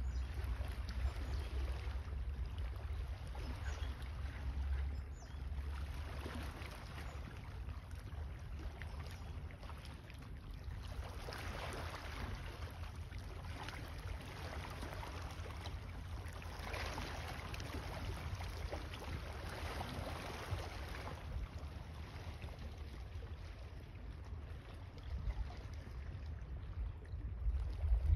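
Wind buffeting a phone microphone, a steady low rumble, with a stretch of brighter hissing noise in the middle and a louder low thump at the very end.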